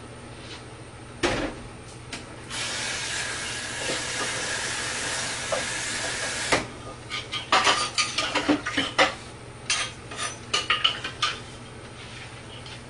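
Tap water runs steadily into a clay mortar for about four seconds to rinse it, then the mortar and pestle are knocked and scraped about in a quick run of clatters.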